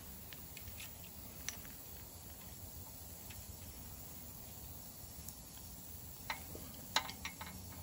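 Faint clicks and light ticks of fingers handling an old copper-wound stator coil and its wires, with a few sharper clicks about six to seven seconds in.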